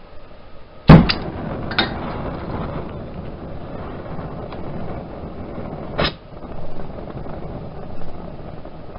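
Henrob oxyacetylene torch lit with a sharp pop about a second in, then the flame burning with a steady noise. A second, smaller pop comes about six seconds in.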